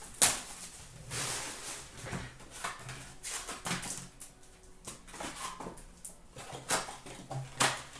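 Trading card boxes and packs handled by hand: a run of cardboard and wrapper rustles, scrapes and taps, with a sharp click just after the start.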